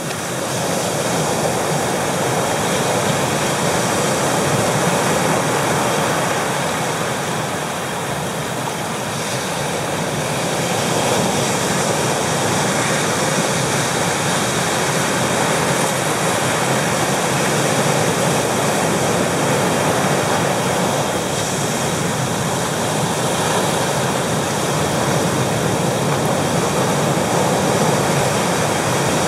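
Pacific Ocean surf breaking and washing over shoreline rocks: a steady roar of rushing water that swells and eases slowly as the waves come in.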